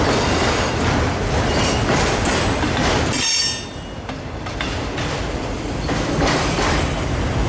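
Freight train rolling past close by: steel wheels clattering along the rails in a steady loud rush, with a sudden brief drop in loudness about three seconds in.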